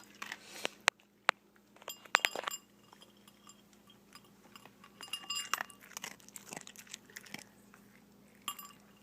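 Dog eating dry kibble pellets, crunching and chewing, with a few sharp clinks about a second in and again near two seconds.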